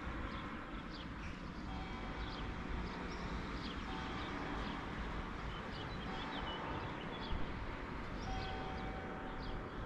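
Birds chirping over a steady low rumble, with a few held steady tones in the middle range that come and go.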